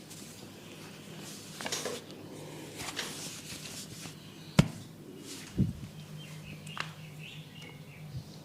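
Hands giving an oiled head massage: short brushing rubs on hair and skin, then a single sharp snap a little past halfway, followed by a dull thump and a lighter click.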